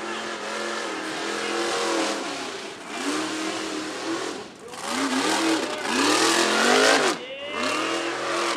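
Mega truck engine revving hard, its pitch climbing and falling several times as the truck races over the mud and dirt course. The loudest climb, about six seconds in, cuts off abruptly before the engine picks up again.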